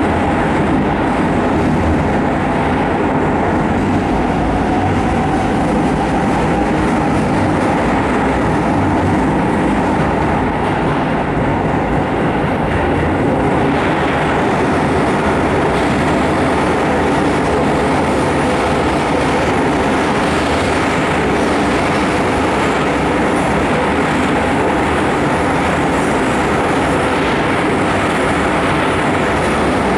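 Keisei 3000 series electric commuter train running at steady speed through a tunnel, heard from inside the car: a continuous, even roar of wheels on rails.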